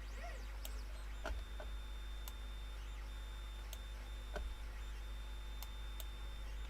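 Computer mouse and keyboard clicks, a handful of sharp isolated ticks spread over several seconds, over a steady low electrical hum.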